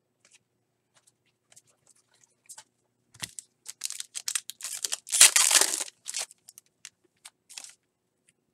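Foil wrapper of a 2018 Donruss baseball hobby pack being torn open and crinkled by hand. A run of crackling starts about three seconds in and is loudest around five seconds in, after a few faint ticks.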